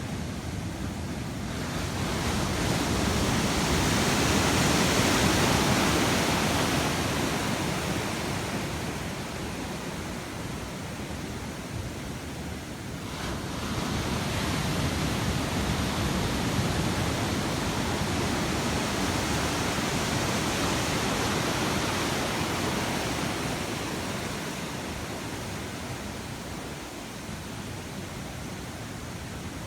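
Ocean surf breaking on a beach: a steady wash of waves that swells twice, once about two seconds in and again about halfway through, each time fading slowly.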